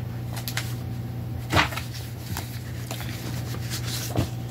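Someone rummaging for printed papers: scattered light knocks and rustles, two of them louder, about one and a half seconds in and near the end, over a steady low hum.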